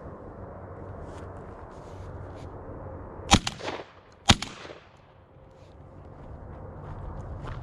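Two shotgun shots about a second apart, each trailing off in a short echo.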